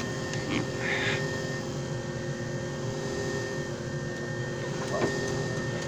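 JFJ Easy Pro disc repair machine running, a steady motor hum and whir as it resurfaces a disc, with a short rustle about a second in and a sharp tick near the end.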